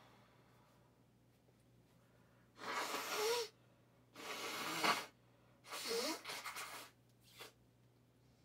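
A person's loud breathy vocal bursts, three in a row about a second and a half apart, each lasting about a second, with a short faint one near the end.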